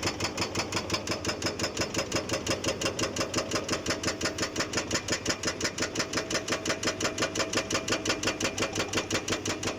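ICM IB1500V hydraulic breaker on an excavator hammering steadily, a rapid even train of blows at about five or six a second, with the excavator's diesel engine running under load.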